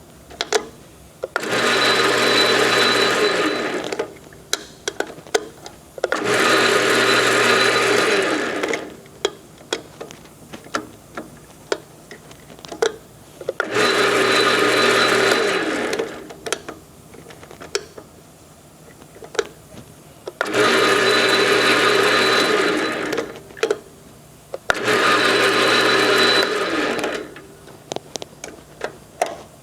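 Enco 12" x 36" gap bed engine lathe with a 1-1/2 hp single-phase motor, run up in five short bursts of about two to three seconds each, stopped between them, while its gear speeds are tried in turn. Sharp clicks and knocks of levers being moved fall in the gaps.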